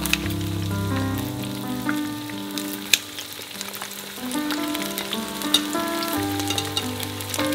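Battered chicken pieces sizzling and crackling in hot coconut oil, with scattered sharp pops, as they are cooked through a second time after being cut into bite-size pieces. A melodic background music track plays along.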